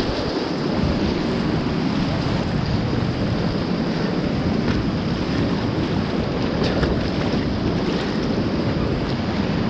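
Rushing river whitewater churning around a kayak, with occasional paddle splashes, and wind buffeting the microphone.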